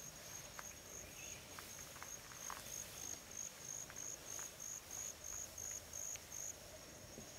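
A high-pitched insect chirping: a steady trill that breaks into evenly spaced chirps about three a second and stops near the end, with a few faint ticks.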